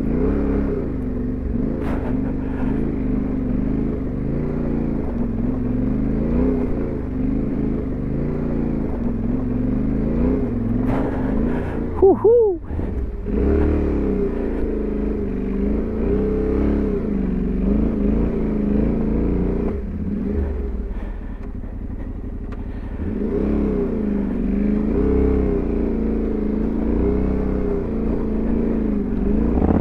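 Yamaha Ténéré 700's parallel-twin engine running under the rider, its pitch rising and falling every second or two as the throttle is worked over a stony trail, with a brief dip about twelve seconds in and a softer stretch later on.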